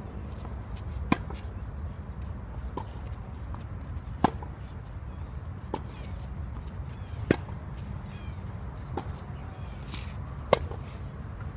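Tennis rally: loud, sharp racket hits on the ball about every three seconds, each followed by a fainter hit from the far side of the court. A steady low rumble runs underneath.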